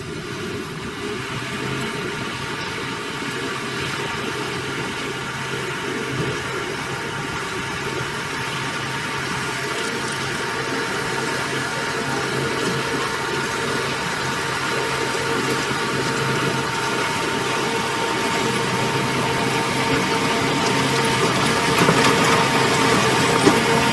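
Diesel engine of heavy construction machinery running steadily with a constant whine, growing gradually louder; near the end the whine drops in pitch.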